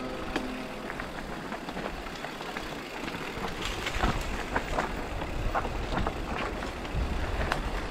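Mountain bike riding down a rocky forest singletrack: a steady rush of tyre noise over loose stones and gravel, broken by frequent short clicks and rattles from the bike.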